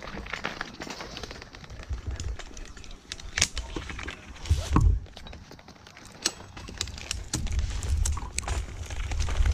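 Climbing gear being handled at the trunk: scattered clicks and knocks from metal rope hardware, and ropes rubbing on bark as a lanyard is set around it. Bursts of low rumble on the helmet-mounted microphone come and go, the strongest about halfway through and again building near the end.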